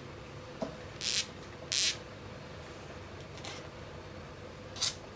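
Four short scratchy rubbing noises of a small part being handled between the fingers, the two loudest close together about a second in, over a faint steady hum.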